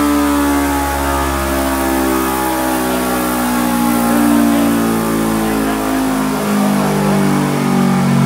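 Motorcycle engine running under load on a dynamometer. Its pitch slowly falls over several seconds and then rises again near the end.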